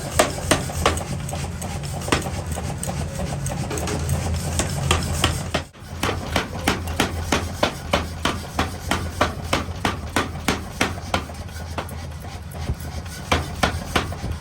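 Repeated hammer blows on steel, about three a second, over the steady hum of a workshop machine; the sound breaks off briefly near the middle, then the blows resume.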